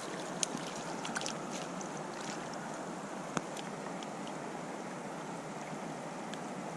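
Creek water running steadily, with scattered small ticks and drips.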